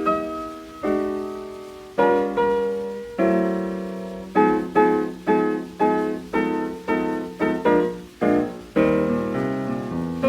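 Hot-jazz piano playing an intro of struck chords, each ringing down before the next, then falling into a quicker, bouncing rhythm about halfway through; an old 78 rpm record from 1929.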